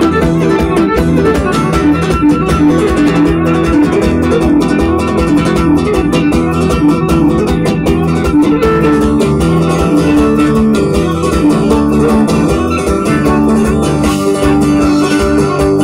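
Cretan folk dance music: plucked lutes playing over a bass line and a steady beat.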